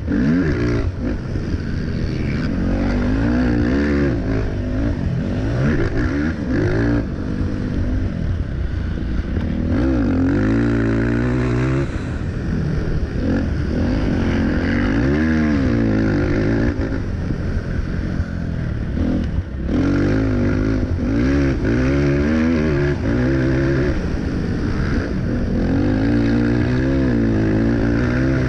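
Race quad's engine heard close from on board, revving hard and shifting under racing load, its pitch climbing and dropping again and again through the gears.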